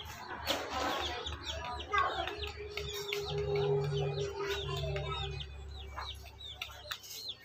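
Domestic chicks peeping continuously, many short high peeps in quick succession, with hens clucking as they feed. A steady low hum runs underneath from about two seconds in until near the end.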